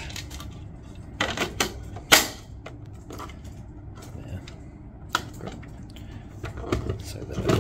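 Scattered clicks and knocks of an HP Engage receipt printer's removable cover being turned around and fitted back onto the printer body, the loudest a sharp click about two seconds in.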